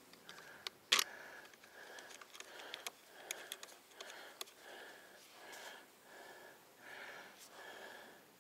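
A person's rapid, heavy breathing close to the microphone, roughly two breaths a second, with scattered sharp clicks; the loudest click comes about a second in.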